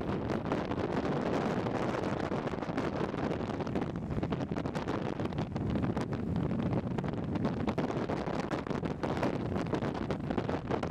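Wind buffeting the microphone at downhill longboarding speed, over a steady rumble of urethane longboard wheels rolling on asphalt.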